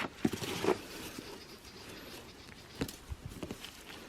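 Quiet handling noise from harvested ginger being turned over by hand: soft rustles and a few light knocks, clustered about half a second in and again near three seconds.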